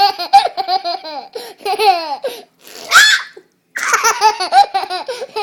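Toddler laughing in rapid, choppy bursts, with a short high-pitched squeal about three seconds in before the laughter starts up again.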